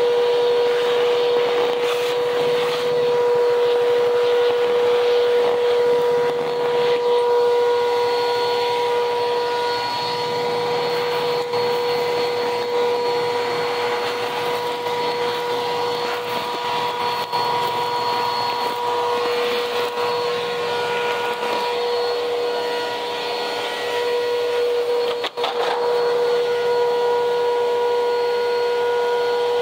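Upright vacuum cleaner running steadily while vacuuming a cement floor: a steady motor whine over a rushing hiss, with a brief drop in sound about 25 seconds in.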